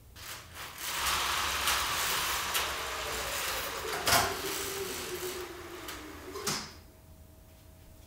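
A window blind being drawn: a steady rushing slide of about six seconds with a tone that slowly drops in pitch, a knock about four seconds in, and a last knock as it stops.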